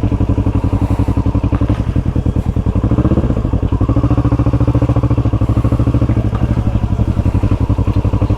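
Motorcycle engine running steadily at low revs with a fast, even exhaust pulse; its pitch shifts slightly about three seconds in.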